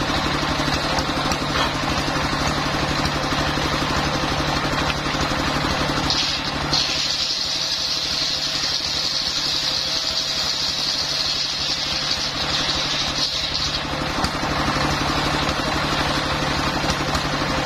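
Single-cylinder diesel engine running steadily, belt-driving a homemade circular table saw. About six seconds in, the blade bites into a coconut-wood beam and gives a loud high-pitched whine for about seven seconds, then drops back to the engine's steady running.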